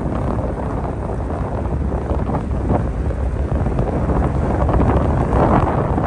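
Wind buffeting the microphone on a ferry's open deck: a steady, fairly loud rushing noise with a heavy low rumble.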